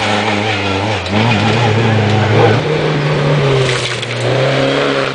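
Rally car engine revving hard under acceleration on a gravel hillclimb. The pitch dips and climbs as it shifts gear, with a step up in pitch about two and a half seconds in.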